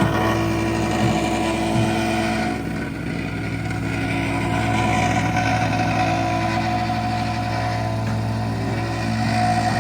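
An engine running steadily, a low hum that dips slightly in level about three seconds in.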